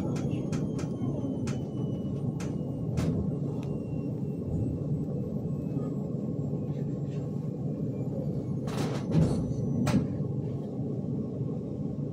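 Hyundai Rotem 142N tram running, heard from inside the car: a steady rumble of the wheels on the rails with a faint high motor whine falling slowly in pitch as it slows. Sharp clicks come in the first few seconds, and a couple of louder knocks come about nine seconds in.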